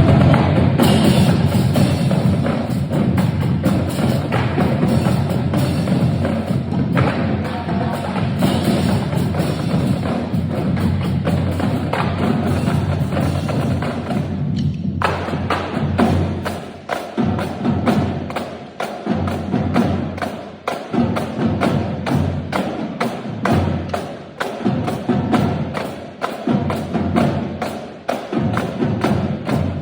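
Percussion music played live: a dense, sustained wash of sound for about the first half, then a fast, even run of sharp struck beats.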